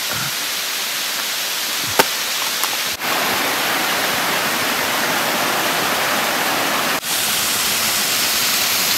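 Steady rush of flowing creek water, with a single sharp click about two seconds in.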